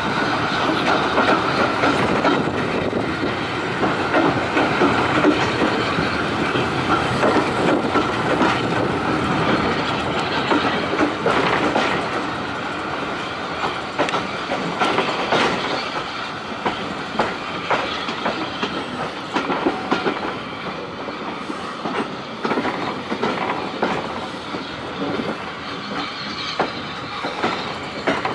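Carriage wheels of a steam-hauled train clattering over rail joints, with a steady rumble and wind rush at an open carriage window. Quieter in the second half as the train slows.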